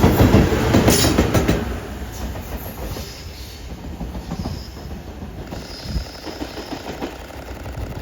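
Freight locomotive running light, with no train behind it, passing on the rails. Its wheels clatter over the rail joints loudest in the first second and a half, then its rumble fades as it moves away.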